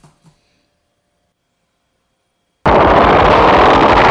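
A few faint clicks, then about two and a half seconds in a sudden, loud, continuous din of gunfire and explosions cuts in abruptly and keeps going.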